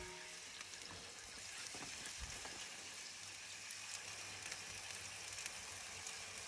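Faint, steady sizzling and fine crackling from a rotisserie duck roasting over lit charcoal in an open kettle grill.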